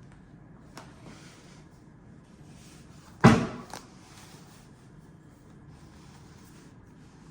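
Apple HomePod 2 packaging being handled: a light click about a second in, then one sharp knock a little past three seconds, the loudest sound, with soft rustling on and off.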